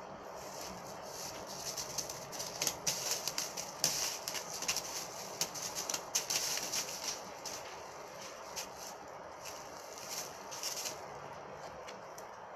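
Rustling and crinkling of clothes and a plastic bag as a ferret digs through a drawer: a flurry of short, crisp crackles, busiest in the middle and dying down near the end.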